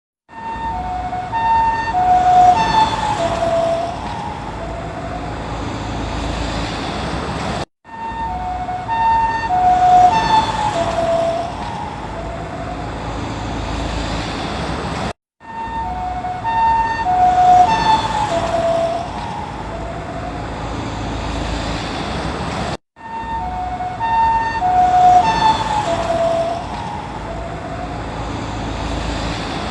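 Japanese ambulance's two-tone high-low siren passing by, the pair of alternating tones dropping in pitch as it goes past (Doppler effect), then fading into road noise. The same pass repeats four times, with a short silent cut between each.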